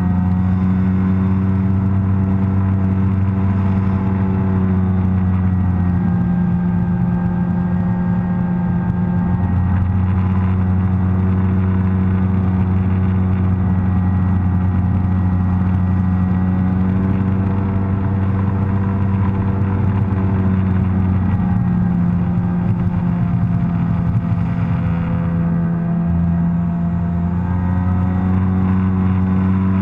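Sea-Doo personal watercraft engine running steadily under way, a constant loud drone whose pitch dips and rises slightly a few times.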